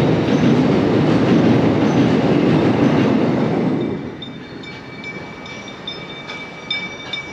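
A train rumbling across the railway bridge overhead, its noise falling away about four seconds in.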